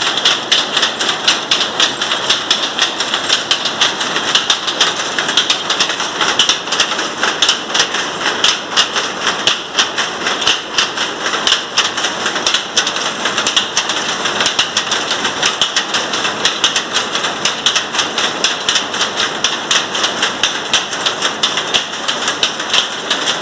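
Jacquard power loom weaving, giving a loud, rapid and steady mechanical clatter of many clicks a second from the shuttle and heald motion.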